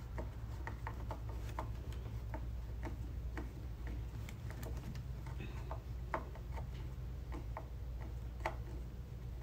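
Hand screwdriver turning a screw to fasten a plastic leg onto a flat-screen TV: light, irregular clicks and ticks, about two a second, over a steady low hum.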